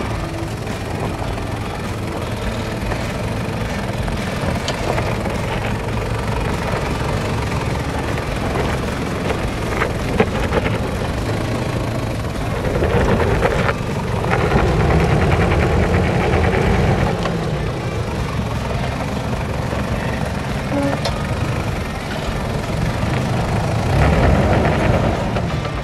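Toyota Land Cruiser Prado 90 engine pulling under load at low speed as the truck crawls up a loose, dry-dirt rocky climb. The engine is worked harder twice: for several seconds about halfway through, and briefly near the end.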